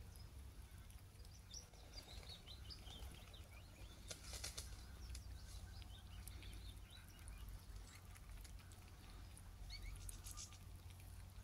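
Faint outdoor ambience: scattered high chirps like small birds, a steady low rumble, and two brief soft rustles, one near the middle and one near the end.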